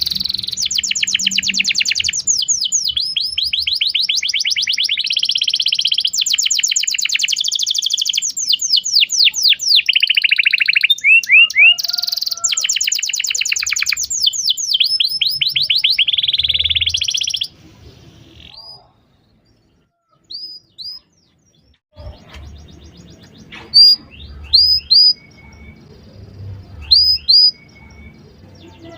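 Domestic canary singing a long, fast song of rapid trills and rolls for about the first seventeen seconds. After a short pause, a few short, sharp chirps follow near the end.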